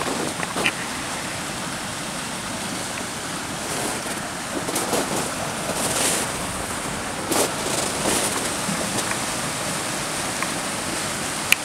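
Steady rush of fast-flowing water in a half-frozen waterfall river, running between ice and snow-covered rocks, with a few brief clicks over it.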